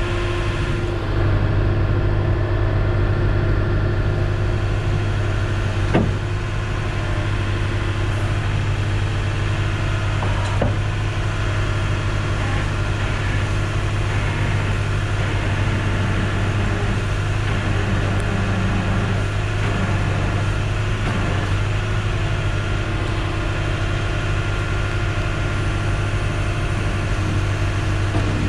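Tow truck engine running steadily with a strong low hum, stepping up slightly about a second in. Two short sharp clicks, about six and ten seconds in.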